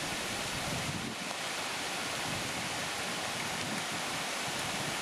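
A steady, even rushing noise that does not change, most of it high-pitched hiss.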